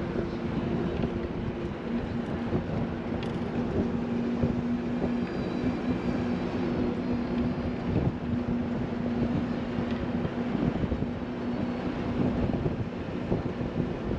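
Bus on the move: a steady engine drone with a constant low hum over rumbling road noise.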